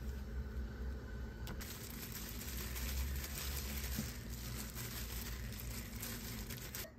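Disposable plastic gloves crinkling and rustling as hands tear boiled chicken tenderloin into shreds: a dense run of small crackles starting about a second and a half in and stopping just before the end, over a steady low hum.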